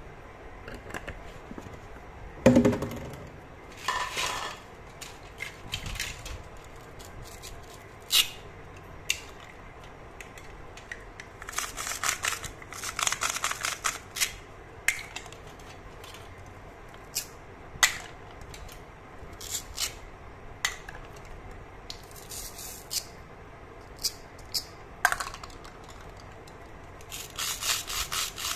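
Toy plastic fruit pieces handled: scattered clicks and knocks of hard plastic, with several short ripping rasps as velcro-joined fruit halves are pulled apart, the longest near the end.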